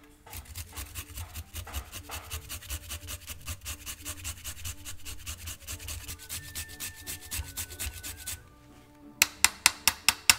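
Fresh ginger root scraped across a small handheld metal grater in quick rhythmic strokes, about five a second, stopping about eight seconds in. Near the end come about six sharp, loud taps in quick succession.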